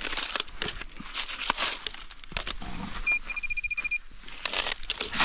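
Irregular crunching and rustling, like someone moving about on rocky, brushy ground. About three seconds in, a fast electronic beeping sounds for just under a second.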